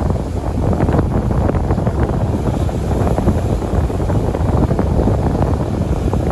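Strong wind buffeting the microphone in a loud, constant rumble, with surf breaking on the beach underneath.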